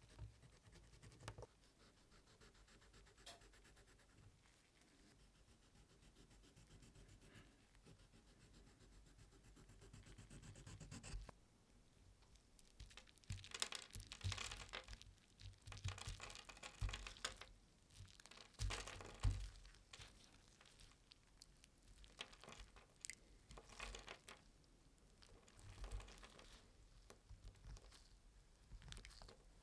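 A few light clicks of handling, then from about halfway a string of irregular scratchy, tearing strokes: the restored pocket knife's blade cutting through material in a sharpness test.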